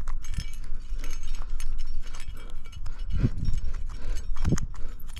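Rock-climbing gear (carabiners and cams on a harness rack) clinking and jangling together in quick, irregular clicks over a steady low rumble.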